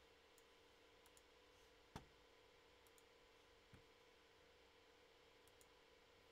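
Near silence: faint room tone with a steady low hum, broken by a single sharp click about two seconds in and a softer click a little later.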